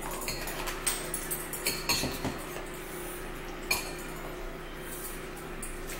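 Metal cutlery clinking against ceramic bowls at a meal: several sharp clinks with a brief ring, at irregular moments, over a steady low hum.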